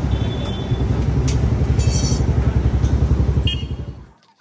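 Motorcycle engine running close by: a steady low rumble with a quick, regular pulse and a few faint clinks over it. It cuts off suddenly about four seconds in.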